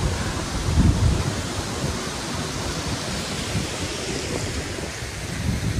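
Wind buffeting the microphone: uneven low rumbling gusts over a steady rushing hiss.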